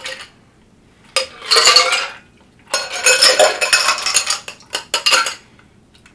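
Ice cubes clattering against drinking glasses as a mojito is poured from one glass into another full of ice. The rattling comes in three bursts, the first about a second in and the last short, with quiet between them.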